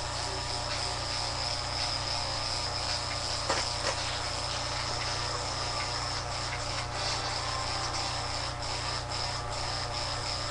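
Electric hair clippers running with a steady high buzz as they taper the hair up the back of the neck, with two light taps about three and a half seconds in.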